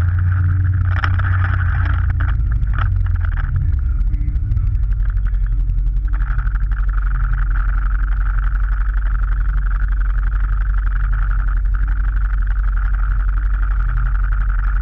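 Motorcycle engine slowing as the bike rolls to a stop, then idling steadily with an even low pulsing beat.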